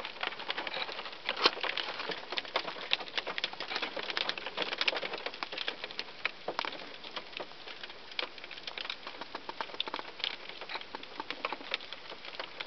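Hail striking a car's windshield and roof, heard from inside the cabin: a dense, irregular stream of sharp ticks that grows sparser in the second half as the squall eases.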